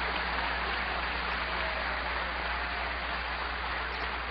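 Large seated audience applauding, a steady dense clapping that eases a little toward the end.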